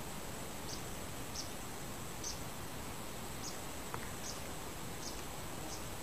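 Royal flycatcher giving short, high chips about once a second, with a steady hiss behind them.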